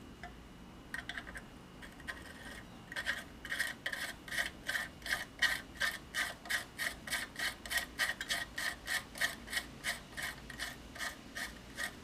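Hand tool rasping back and forth on metal in quick, even strokes, about three to four a second. A few softer strokes come first, then a steady run starts about three seconds in.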